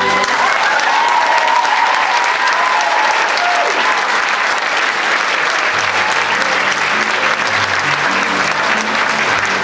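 Audience applauding steadily for a stage dance, with a few rising and falling cries from the crowd in the first three seconds.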